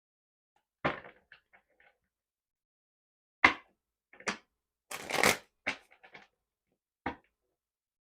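Tarot deck being shuffled and handled: scattered sharp card snaps and taps, the loudest about three and a half seconds in, with a longer riffling stretch around five seconds.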